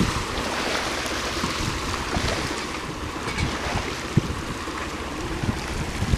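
Waves washing on the beach with wind rumbling on the microphone, and a few brief knocks.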